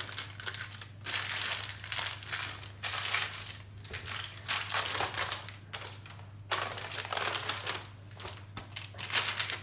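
Baking parchment paper crinkling and rustling in repeated bursts as hands handle it and smooth it around a sheet of freshly baked sponge cake.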